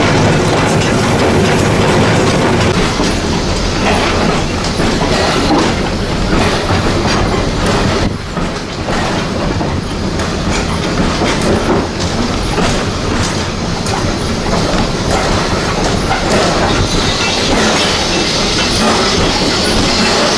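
Steam-hauled heritage train running on the rails, heard from on board: a steady rumble with repeated clicks of the wheels over the rail joints. A brighter hiss comes in near the end as the train rolls into the station.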